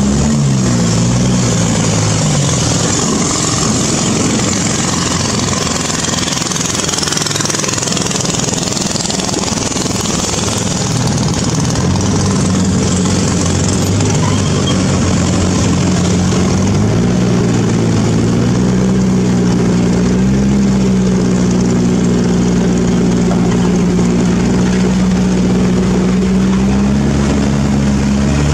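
Motorboat engine running with a steady hum. For the first half, a rushing hiss of water and wind covers most of the engine. About seventeen seconds in, the engine hum comes back strong and steady.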